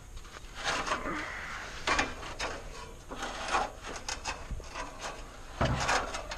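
Handling noises: a series of short scrapes and rubs with a few light knocks, as of wood or other materials being moved and rubbed against each other. The loudest bursts come about two seconds in, around the middle, and near the end.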